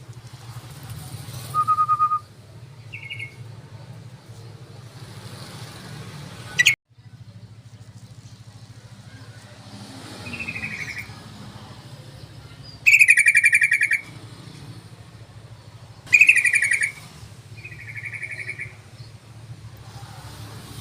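Yellow-vented bulbul (trucukan) calls: six short, bubbly phrases, the two loudest about two-thirds of the way through, over a steady low hum. A sharp click and a brief drop-out come about a third of the way in.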